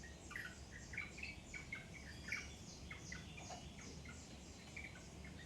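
Birds chirping: many short, quick chirps, several a second and overlapping at different pitches, keeping up without a break.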